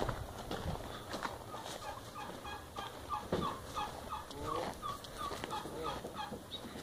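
A fowl calling, a run of short, evenly spaced notes about three a second lasting around three seconds, with more calls near the end. A walking horse's hooves tread on the dirt path underneath.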